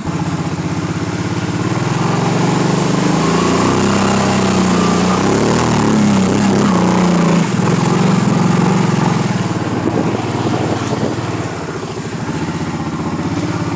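Kawasaki Brute Force 750 ATV's V-twin engine running under throttle while driving through deep water. The engine pitch rises and falls about four to eight seconds in, then settles.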